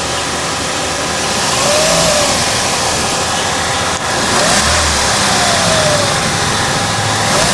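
2012 Chevrolet Sonic's petrol engine being revved and let back down to idle, twice, with the hood open.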